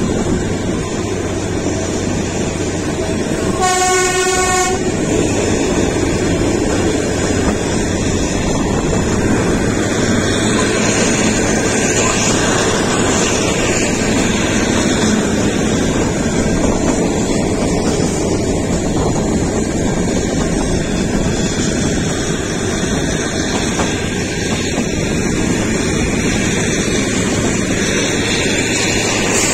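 Kalka–Shimla narrow-gauge toy train running, with a steady rumble of wheels on track. Its horn sounds once, briefly, about four seconds in.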